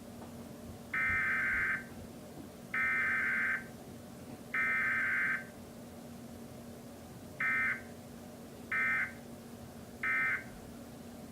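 Emergency Alert System SAME digital data tones. The header is sent three times as bursts of just under a second each, about a second apart. Then come three shorter end-of-message bursts.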